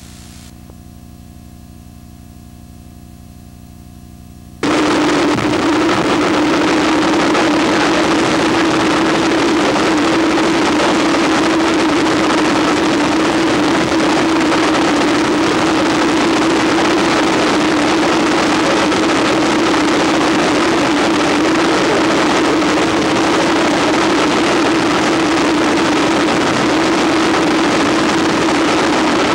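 Wind tunnel running: a loud, even rush of air with a steady low hum, cutting in suddenly about five seconds in over a faint electrical hum.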